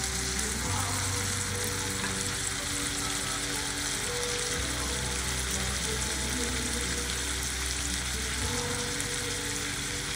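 Sliced onions and minced garlic sizzling steadily in butter in a skillet over medium-high heat, with a wooden spoon stirring them at times.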